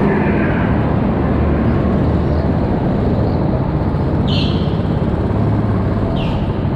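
Go-kart running at speed, heard from on board, with its steady low drone. Two short high squeals about four and six seconds in, as the tyres scrub through corners.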